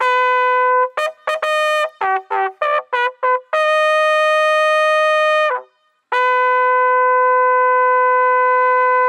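Bugle call on a brass horn. It opens with a held note, runs through a quick string of short notes, then holds two long notes with a short break between them.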